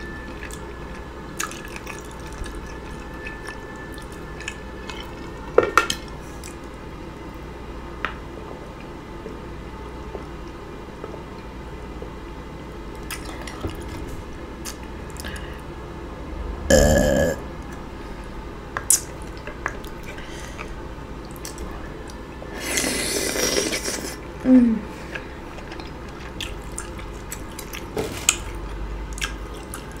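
Close-miked wet eating sounds from a butter-sauced seafood boil: chewing and lip-smacking with scattered sharp clicks of shells or cutlery. A louder burst comes just past the middle, and a longer noisy one about two-thirds of the way in.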